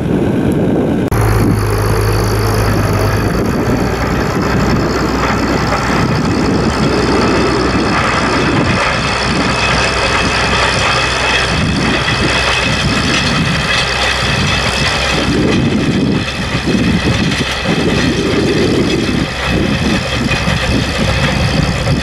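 International Harvester 956 XL tractor's diesel engine running steadily as it pulls a 6.3 m Heva field roller, with a fluctuating low rumble over it.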